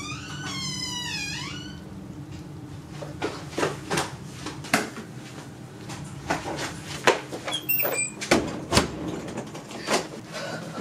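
A door creaking with a wavering squeal for about the first two seconds, then a string of knocks and clicks, with a door handle and latch turning near the end, over a steady low hum.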